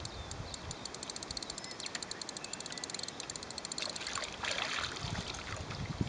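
A spinning fishing reel clicking rapidly for a couple of seconds, then splashing as a hooked carp thrashes at the surface and is scooped into a landing net.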